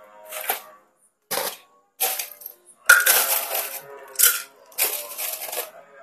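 Someone eating fried noodles: a run of short noisy slurps and mouth sounds, about one every second, mixed with a metal spoon and fork scraping and clinking on the plate.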